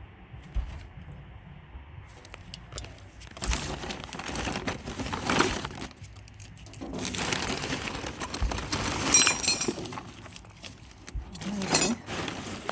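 Hands rummaging through loose scrap and rubbish in a skip: irregular bursts of clattering and rustling as items are shifted, starting about three seconds in.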